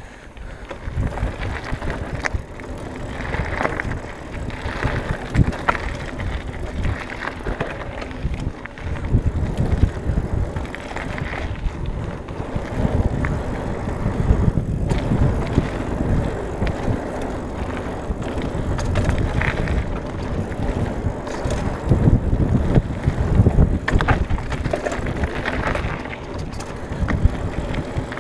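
Trek Marlin 6 hardtail mountain bike ridden fast down a dirt and gravel trail: a continuous tyre rumble over the ground, with the bike rattling and knocking over bumps and stones.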